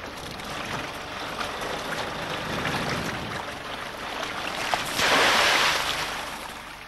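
Sea water rushing and splashing alongside a fishing boat's hull, with a sudden louder surge of splashing about five seconds in that fades away.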